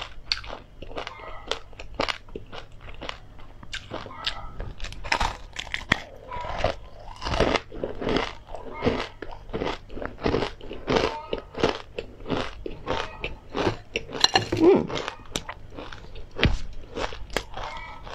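Crunching and chewing of crisp fried perilla leaves crusted with seeds in chili crisp, a close run of sharp, crackly bites one after another.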